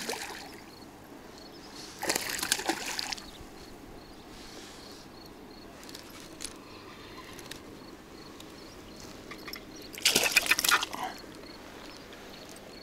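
A small pike thrashing at the water's surface on a fishing line, splashing in three short bursts: at the start, about two seconds in, and again about ten seconds in as it is drawn to the bank.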